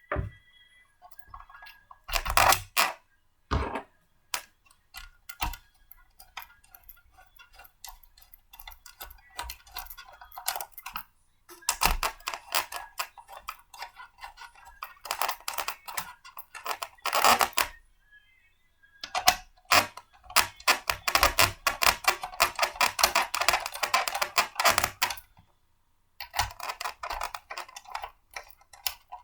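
Small blender parts being handled and fitted together by hand: irregular runs of rapid clicks and rattles, with short pauses between them.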